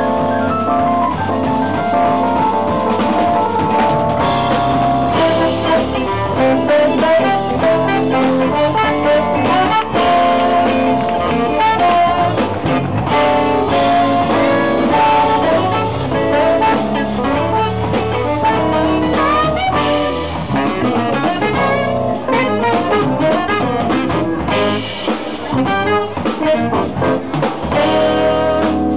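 Live jazz band playing: saxophone lead over electric guitar, bass and drum kit.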